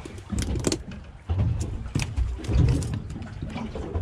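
Handling noise from a body-worn camera: the microphone rubbing and bumping against clothing as the wearer moves, giving irregular low thuds and scattered clicks.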